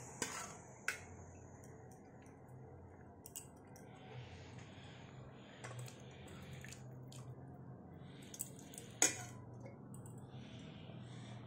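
A metal spatula clinks and scrapes against a steel bowl and a metal kadai as fried paneer cubes and their soaking water are tipped into thick gravy, with soft splashing and squelching. The sharp clinks come at scattered moments, the loudest about nine seconds in.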